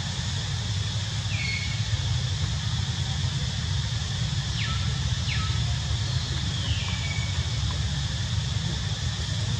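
Outdoor ambience: a steady low rumble under a steady high hiss, with a few short, high-pitched calls that fall in pitch, two quick ones close together about five seconds in.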